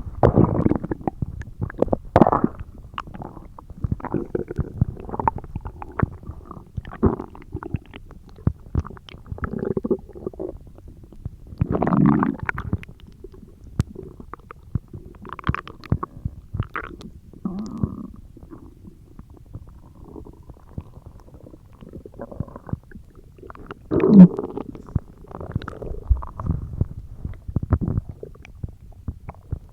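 A person's stomach growling and gurgling: irregular bubbling, clicks and low rumbles, with two louder growls, one a little before the middle and one near the end.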